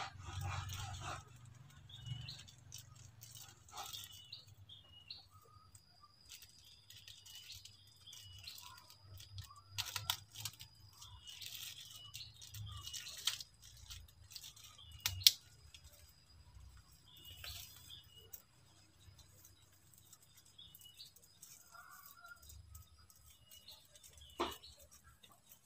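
Small birds chirping in short repeated calls, over scattered handling clicks and rustles, with one sharp click about 15 seconds in. A faint steady high whine runs under most of it.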